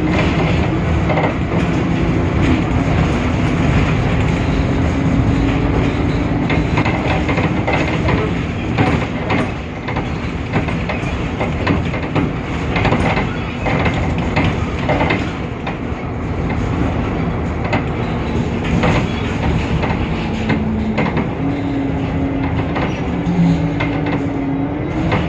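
Temsa Avenue LF city bus running along with its DAF PR 228 diesel engine, a steady rumble of engine and road noise whose engine tone rises and falls with speed. Frequent rattles and knocks sound through it.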